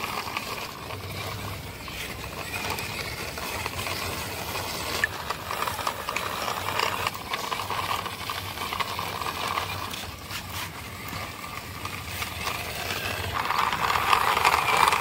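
Plastic toy car pushed by hand along rough concrete, its hard plastic wheels rolling with a steady gritty rattle and a few small clicks.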